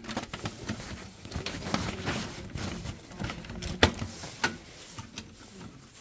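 Hands handling wires and plastic connectors on a boiler circuit board: irregular small clicks and rustles, with one sharper click about two-thirds of the way through.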